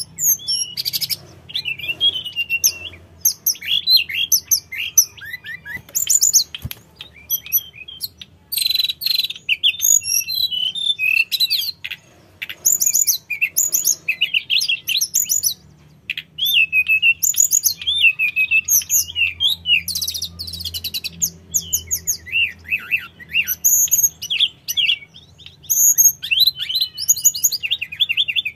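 Hill blue flycatcher (tledekan gunung) singing continuously: quick, varied phrases of high whistles and fast trills, broken by a few short pauses.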